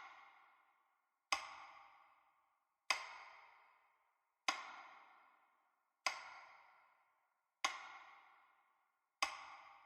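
A struck, ringing note repeated at an even pace, about once every 1.6 seconds: six strikes, each sharp at the start and dying away before the next.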